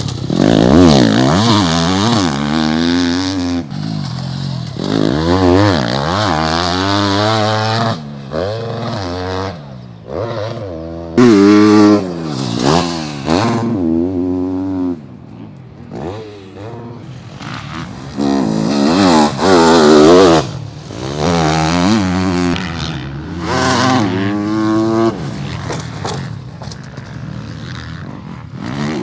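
Factory Yamaha YZ250F 250cc four-stroke single-cylinder motocross bike revving hard through the gears. The engine pitch climbs, cuts at each shift and drops again, over and over. It grows loud on close passes and fades as the bike rides away.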